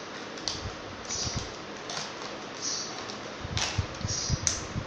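Light clicks and taps of hard plastic as a toy makeup case is handled, its pieces and inner tray moved, with two sharper clicks near the end.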